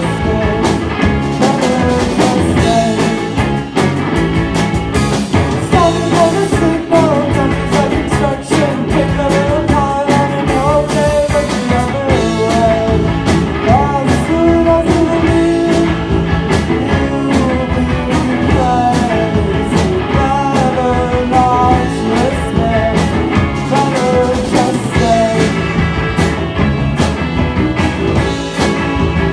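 Live rock band playing: two electric guitars, an electric keyboard and a drum kit, with a woman singing over them.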